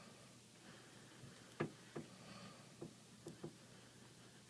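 Faint, sharp taps and clicks of small tools and parts being handled during an iPad screen repair, five in all at irregular spacing.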